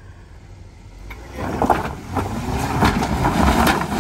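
Jeep Wrangler's engine revving hard under throttle as it crawls up a pile of boulders, starting about a second and a half in. Tyres scrabble over the rocks, with several sharp knocks and scrapes of rock against the tyres and underbody.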